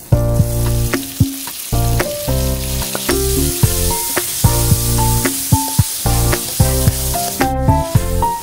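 Tomato wedges and shallots sizzling in hot oil in a wok, with a metal spoon clinking and scraping against the pan as they are stirred. Background music plays over it.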